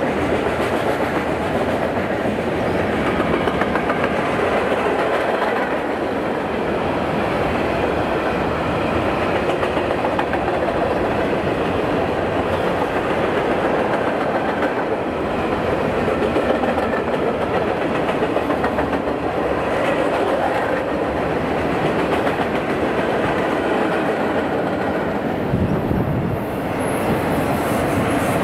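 Freight cars of a long train rolling steadily past, steel wheels clicking over the rail joints with a continuous rumble and rattle.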